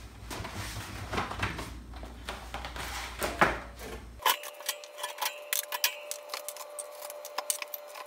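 Clinks, knocks and rattles of bottles, jars and food containers being taken out of a refrigerator and set down. They come scattered at first, then as many quick clicks from about four seconds in, over a faint steady tone.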